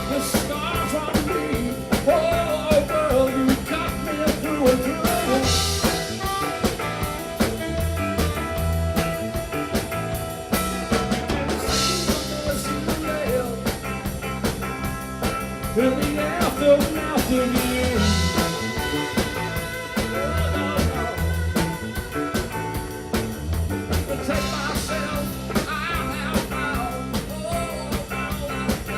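Live blues-rock band playing an instrumental break: drum kit keeping a steady beat with a busy cymbal, bass notes and a lead line that bends and wavers in pitch.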